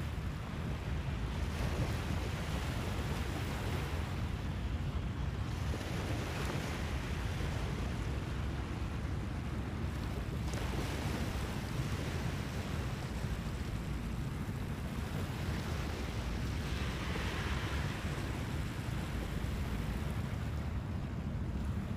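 Small waves washing onto a sandy shore, swelling and easing now and then, over a steady low rumble of wind on the microphone.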